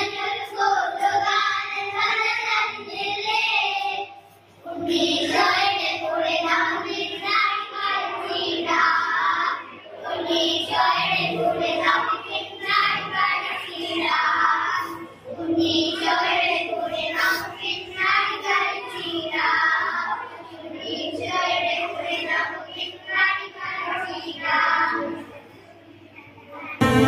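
A group of children singing a Christmas carol together, in phrases with a short break about four seconds in; the singing stops near the end and recorded music cuts in at the very end.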